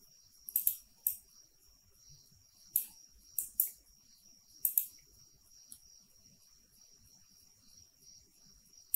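Computer mouse button clicks: about eight short, sharp clicks, several in quick pairs, mostly in the first five seconds. A faint steady high-pitched whine runs underneath.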